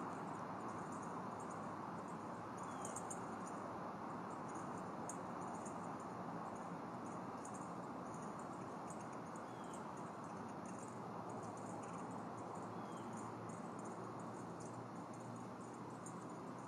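Outdoor ambience from a nest-cam microphone: a steady hiss with high-pitched insect chirping pulsing irregularly throughout, and a few faint short rising chirps.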